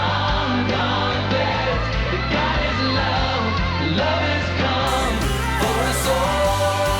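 A song with singing, played first in a version with its high treble filtered out and then switching back to the original full-range recording about five seconds in. The edited version simulates high-frequency hearing loss, with little heard above about 5,000 Hz.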